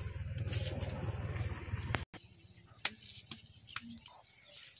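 Loud, rumbling noise on a phone's microphone that cuts off abruptly about two seconds in. After it comes quiet outdoor ambience with a few sharp clicks and faint bird chirps.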